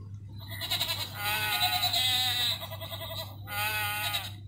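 Recorded sheep bleating from a children's sound board book's small speaker, set off by pressing its sheep button: a long wavering bleat, then a second, shorter one about three and a half seconds in.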